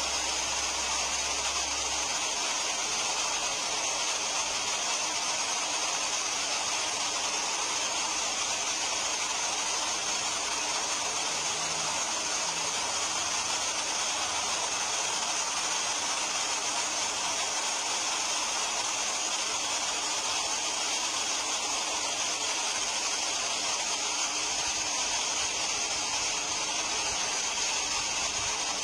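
Steady rushing of river water pouring over a weir and foaming down the rapids, an even noise that does not change.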